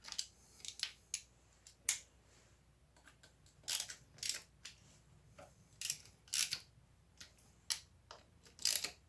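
Scattered short metallic clicks and clinks, a dozen or so at uneven intervals, some in quick pairs, from hand tools and bolts at work on a motorcycle's primary cover bolts.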